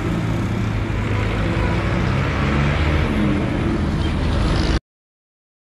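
Motor traffic on the road: a steady rumble of engines and road noise, cutting off suddenly near the end.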